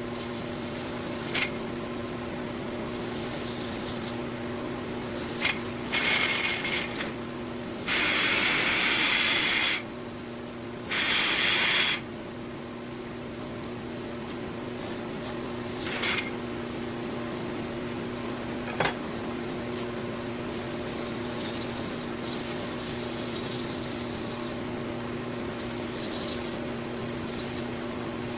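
Electric abrasive machine running with a steady motor hum while the steel blade of a draw knife is pressed against it in several bursts of loud grinding hiss, the longest lasting about two seconds, as the blade is sharpened or polished.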